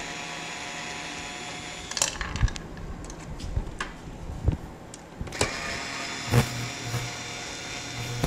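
Cordless screwdriver's motor whirring in spells as screws are backed out of a Tennant floor scrubber's motor housing, with a few sharp clicks and knocks in between.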